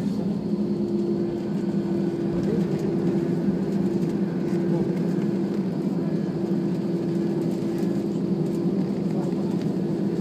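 Jet airliner cabin noise while taxiing after landing: a steady engine hum with two steady low tones, heard from inside the cabin.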